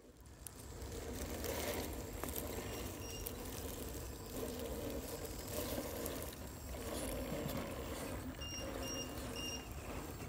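Electric RC scale rock crawler's motor and gearbox whirring in bouts as it crawls up a steep rock. Near the end come three short high-pitched beeps about half a second apart.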